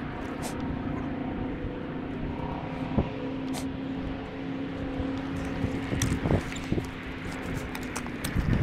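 An engine running steadily, a low even hum, with a few scattered knocks.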